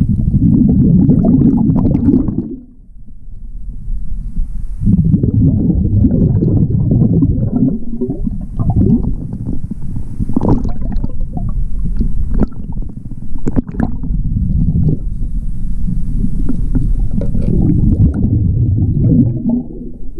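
Scuba diver's exhaled air bubbling out of the regulator underwater, a low rumbling gurgle. It dies down briefly about two and a half seconds in, then bubbles on again, with a few sharp clicks along the way.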